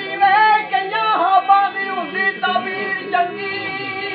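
Punjabi folk singing (boliyan) with musical backing: a wavering, ornamented vocal line over steady held tones. The voice drops away about three seconds in, leaving the steady tones.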